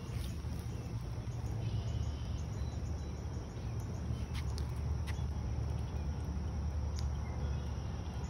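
Outdoor ambience: a steady low rumble on the microphone, with faint insect and bird calls and a few soft clicks.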